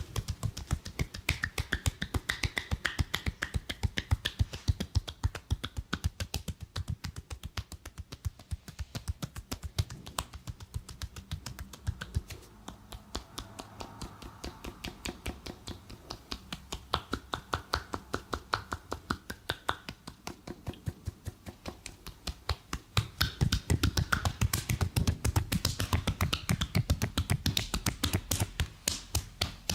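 Barber's hands striking in a fast percussive massage, a steady rapid run of slapping claps at roughly five or six a second. About three-quarters of the way through the strokes become louder and heavier.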